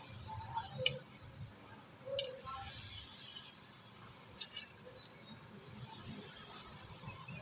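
Hand tools clicking against a bonsai tree's branches and wire during shaping: a few sharp snips or clicks, about a second in, just past two seconds and about four and a half seconds in, over a faint steady background.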